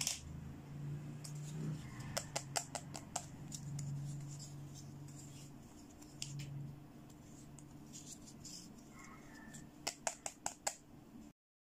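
Hard plastic toy accessories clicking and tapping as they are handled. There is a quick run of sharp clicks about two to three seconds in, and another near the end.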